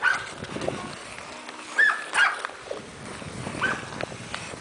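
Clear, thick lake ice singing and twanging: a few short, high pings, each a sharp crack with a brief whistling ring, spaced irregularly over a low scraping hiss.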